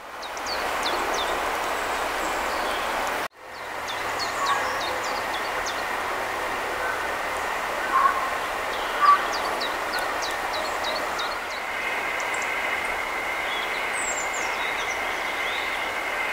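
Small birds chirping, many short high calls scattered over a steady rushing background noise. Two brief louder sounds come a little past the middle, and the sound cuts out for an instant about three seconds in.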